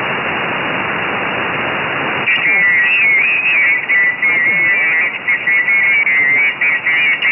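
Single-sideband receiver hiss from the QO-100 satellite downlink through the SDR's narrow audio passband. About two seconds in, an incoming signal breaks in as high, warbling, whistle-like tones that stop and start like chopped speech.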